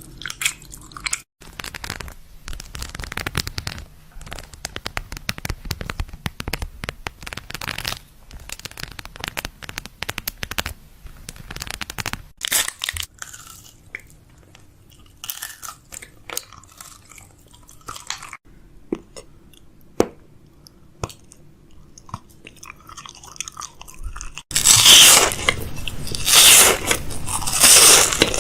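Crunchy snack being bitten and chewed: many small crackles throughout, with a much louder, denser stretch of crunching near the end.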